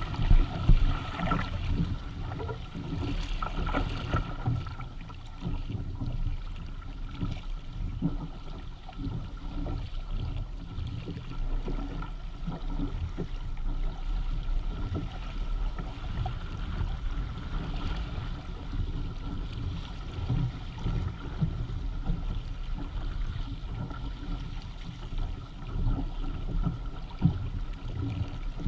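Water rushing and splashing along the hull and outrigger floats of a Hobie Tandem Island sailing kayak moving under sail through choppy water, in uneven surges. Wind buffets the microphone with a low rumble.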